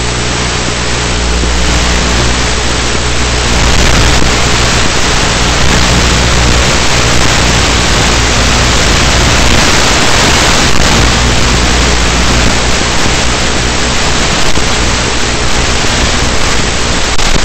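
Steady rush of airflow over an onboard camera's microphone, with the low hum of the ZOHD Talon's electric motor and propeller under it, as the RC plane flies. It grows a little louder in the first few seconds and then holds.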